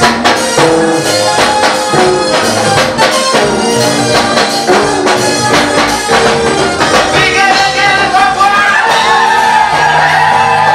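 Live gospel praise music: a band with drum kit and tambourine keeping a steady beat under sustained keyboard and vocal lines, with a long held melody toward the end.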